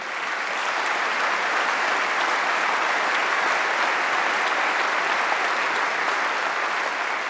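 Large hall audience applauding steadily, swelling up over the first second.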